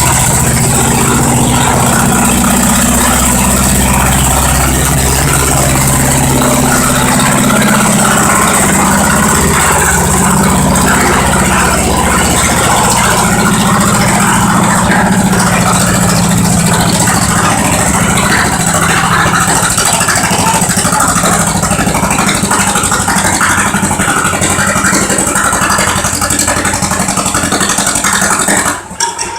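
Farm tractor engine running hard under load as it pulls the sled, loud and steady with a rattle, its pitch shifting about seven seconds in. The sound cuts off suddenly near the end.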